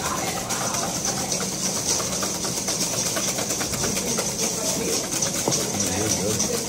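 Wire whisk beating eggs in a stainless steel bowl: rapid, irregular clicking and scraping of the wire tines against the metal, over a steady high hiss.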